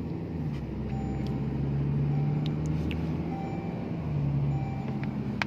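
Steady drone of a Toyota Hilux Revo pickup heard from inside the cabin while driving: engine hum and road noise at a constant speed, with one sharp click near the end.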